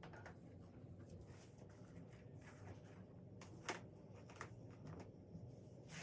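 Near silence with faint rustling and a few soft clicks, the loudest about two-thirds of the way through.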